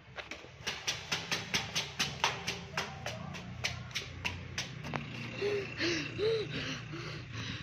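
Quick footsteps running up a flight of stairs, about five steps a second, then out-of-breath panting with short voiced gasps for the last couple of seconds.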